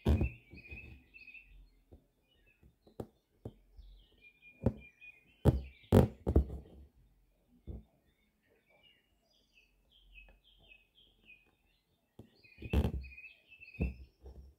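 Small birds chirping and twittering throughout, over sharp, squeaky rasps of an embroidery needle and thread pulled through fabric stretched in a hoop. The loudest pulls come in the middle and near the end.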